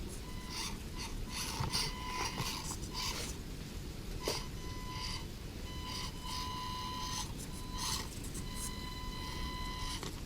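Axial SCX24 Deadbolt micro RC crawler on the move: its small electric motor and gears whine in on-off spurts as the throttle is worked, with scattered clicks and crunches of the tyres and chassis on rocks and sand.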